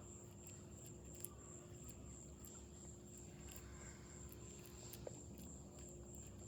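Faint background noise: a low rumble with a thin, steady high-pitched whine and a few faint clicks.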